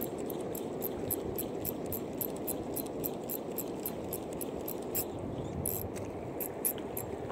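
Small spinning reel being cranked to retrieve a lure, giving a fast, regular, faint high ticking, about three to four ticks a second, over a steady low rush of wind and water.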